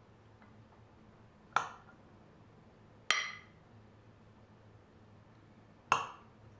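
Metal spoon clinking three times against dishware while penne is spooned onto a plate, each strike sharp with a short ringing after it; the strikes fall about a second and a half in, about three seconds in, and near the end.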